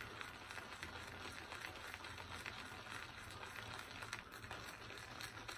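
Shaving brush being loaded on soap pressed into a container: faint, steady wet swishing and crackling as the bristles work the soap.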